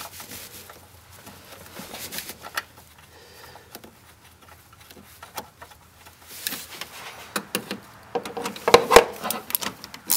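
Light clicks and knocks of a bracket and wiring harness being handled and fitted back in place, with a quieter stretch in the middle and a denser run of louder clicks in the last few seconds.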